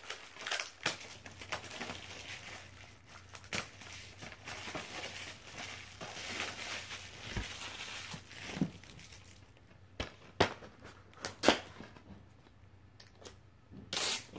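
Plastic shrink wrap on a DVD case crinkling and tearing as it is picked and peeled off, with many small crackles. Near the end the crinkling stops and a few sharp plastic clicks follow.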